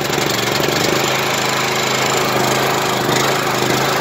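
Honda four-stroke small engine on a DeWalt gas pressure washer running at a steady speed, just after being pull-started with the choke on.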